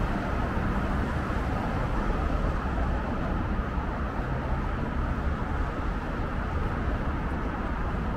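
Steady road traffic noise: a continuous low rumble of passing motor vehicles, with no single event standing out.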